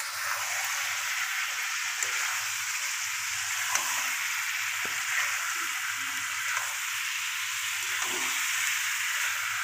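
Meat and potato pieces sizzling in oil in a kadai with a steady hiss while being stirred, the steel spatula clicking against the pan a few times.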